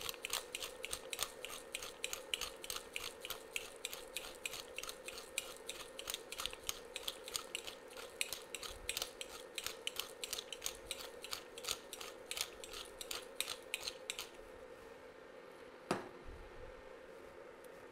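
Pepper mill being twisted to grind black pepper at a medium-coarse setting: a steady run of dry ratcheting clicks, about three or four a second. The grinding stops, and a single knock follows shortly before the end.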